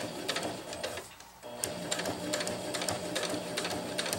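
Domestic sewing machine stitching a straight seam through nylon hammock fabric and grosgrain webbing: a steady motor hum with rapid, regular needle ticks. It eases off briefly about a second in, then runs on steadily.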